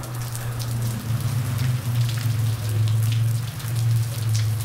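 Meltwater dripping and splattering from thawing icicles onto a wet sidewalk: many scattered small drips, with a steady low hum underneath.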